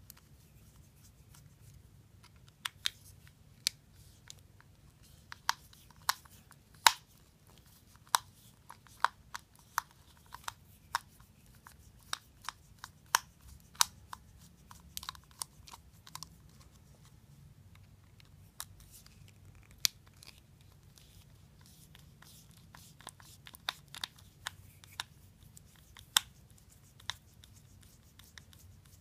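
Screwdriver tips clicking and scraping against the small screws and plastic body of a Shimano spinning reel as they are worked loose. The clicks are sharp and irregular and come in clusters, with a short lull a little past the middle.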